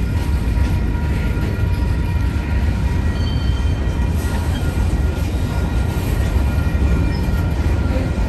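Covered hopper cars of a freight train rolling past close by: a steady, loud low rumble of steel wheels on the rails, with faint steady high-pitched tones above it.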